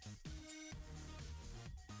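Quiet electronic background music with a steady beat.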